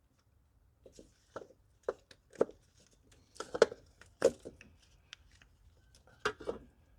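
Irregular knocks, clicks and clatter of hand tools and engine parts being handled during intake disassembly, with the loudest knocks about halfway through.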